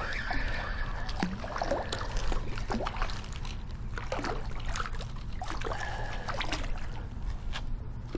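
A hooked jack crevalle thrashing at the surface and being lifted out of the water, making short, irregular splashes and sloshes.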